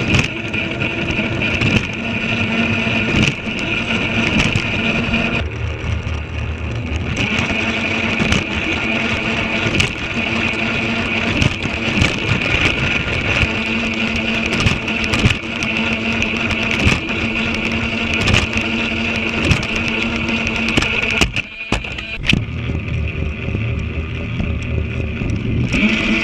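Battery-powered Trackmaster toy train motor running with a steady whine, and the wheels clicking and rattling over the plastic track. The whine drops away briefly twice: about a quarter of the way in and again near the end.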